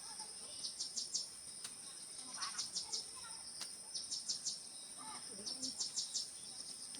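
Insects calling: a steady high-pitched drone, over which a chirp of three or four quick pulses repeats about every second and a half.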